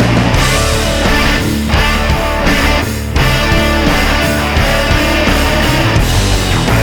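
Loud rock music with distorted electric guitar, heavy metal in style.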